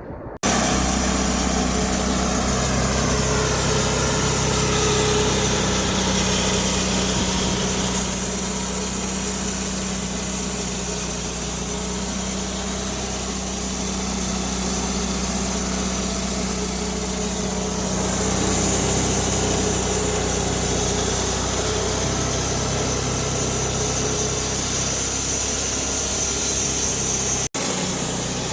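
Large engine of heavy sawmill machinery running steadily at a constant speed, with a low hum under a wide hiss. The sound cuts out for an instant about a second before the end.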